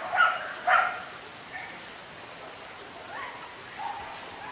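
Hunting dogs barking: two sharp barks in the first second, then a few fainter yelps.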